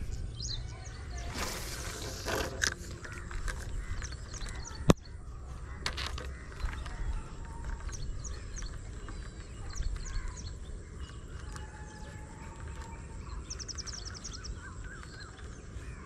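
Birds chirping and calling in the open air: many short high chirps throughout, with a quick trill about thirteen seconds in, over a steady low outdoor rumble. A single sharp click about five seconds in is the loudest sound, and there is a brief hiss about two seconds in.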